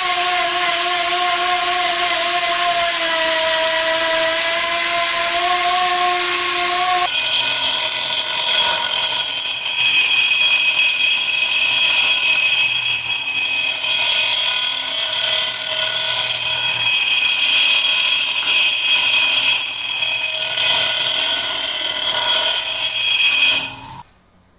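Angle grinder spinning a felt buffing pad against a steel axe head, a loud steady motor whine that dips slightly in pitch under pressure. About seven seconds in it changes to a bench grinder's abrasive wheel roughly sharpening the axe edge, a high steady whine with grinding hiss. The sound cuts off abruptly near the end.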